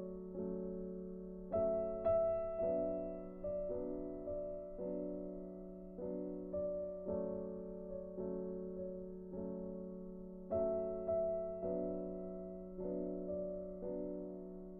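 Background piano music: slow, gentle notes, each struck and left to fade, over a steady low drone, with a louder chord about one and a half seconds in and again about ten seconds in.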